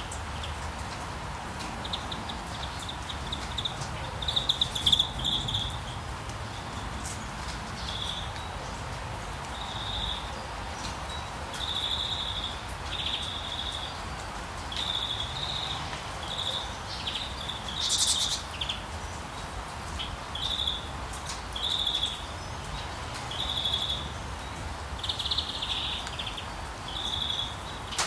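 A bird repeating a short, high chirp every second or two, with a quick run of chirps about five seconds in and a sharper call later, over a steady hiss of rain in a forest.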